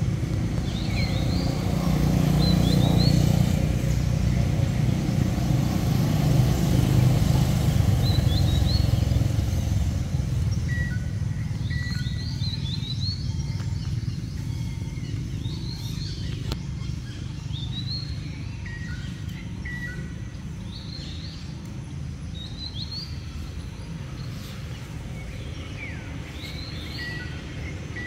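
Small birds chirping again and again in short high chirps and quick sweeps, over a low rumble that swells during the first few seconds and fades away after about ten seconds.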